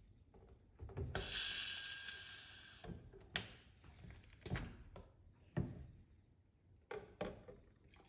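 Kitchen food-preparation handling sounds: a hissing rustle about a second in lasting nearly two seconds, then about six sharp knocks and clicks of utensils or containers being handled.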